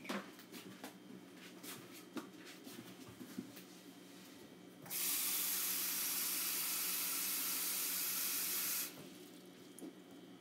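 A few light clicks and knocks, then a kitchen tap runs steadily for about four seconds, starting about five seconds in and shutting off abruptly: water being drawn to measure out a cup for the dumpling dough.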